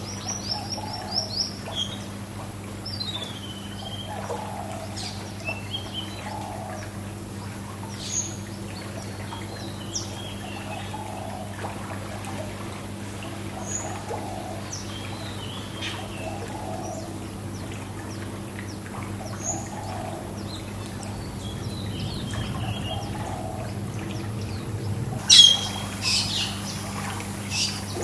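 Small birds chirping and calling on and off over a steady low hum and the faint sound of pool water. A few loud, sharp calls come near the end.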